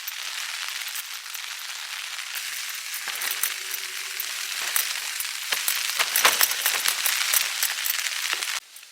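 Bacon and vegetarian black pudding sizzling in a frying pan, with scattered clicks from a utensil in the pan that grow busier in the second half. The sizzle cuts off sharply near the end.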